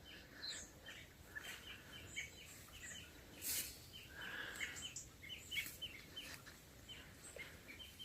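Many songbirds chirping and singing together, a dense chorus of short, quickly repeated chirps with higher notes over them. A brief hissing burst about three and a half seconds in.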